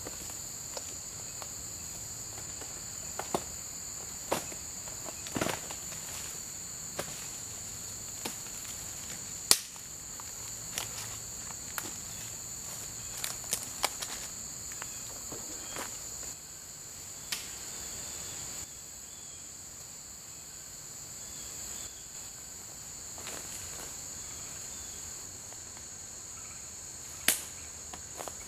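Steady high-pitched insect chorus throughout. Over it come scattered sharp cracks and snaps of bark being pried and torn off a dead tree trunk by hand. The loudest snaps come about ten seconds in and near the end.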